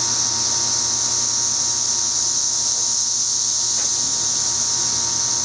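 A chorus of cicadas droning steadily at a high pitch, without a break.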